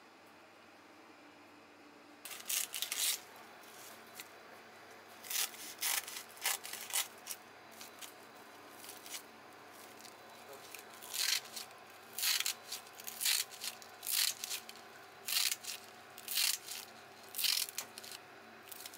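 Kitchen scissors snipping a sheet of dried nori seaweed into thin strips: a series of short snips, starting about two seconds in and coming in small clusters.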